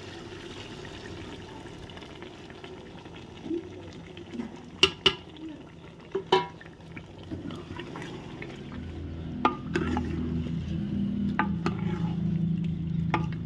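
Mutton curry stirred with a steel spoon in a large aluminium pot over a steady sizzle, the spoon knocking against the pot several times. The stirring gets louder in the second half.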